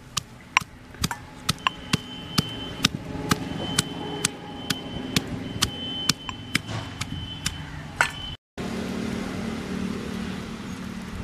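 Stone pestle pounding chopped shallots in a stone mortar, sharp knocks about two a second for about eight seconds. After that comes a steady low background noise.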